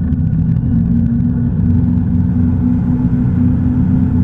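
Tige 22ve wake boat's inboard engine running steadily under load as it pulls a wakesurfer up out of the water, a low, even rumble mixed with water churning behind the stern.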